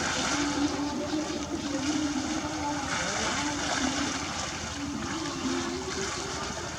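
Many people wading through shallow wetland water with bamboo polo fish traps: continuous splashing and sloshing of water.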